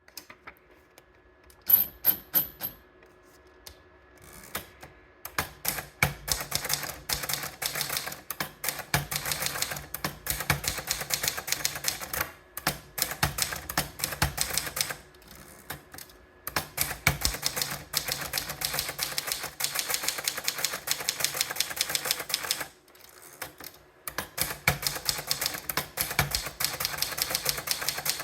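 Contessa Deluxe typewriter being typed on: fast runs of sharp key strikes, broken every few seconds by short pauses.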